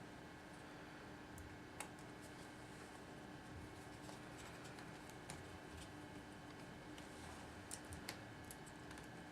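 Faint, scattered small clicks of a screwdriver working small screws on a laptop's battery, with a few clustered near the end, over a steady faint hum.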